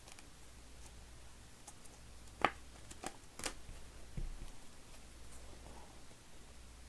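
Baseball cards being handled and sorted by hand: a few soft clicks and rustles of cards and packaging, clustered in the middle, over faint room hum.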